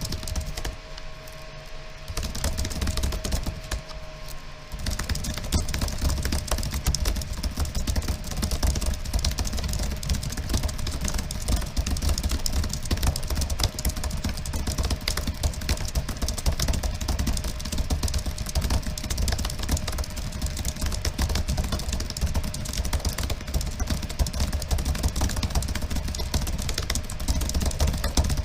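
Fast typing on a computer keyboard: a dense, continuous clatter of keystrokes, patchier in the first few seconds, over a steady low hum.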